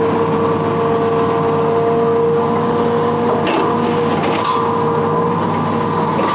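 Hitachi Zaxis 210F amphibious excavator running steadily, its diesel engine under a constant high whine, with a couple of brief higher-pitched noises partway through.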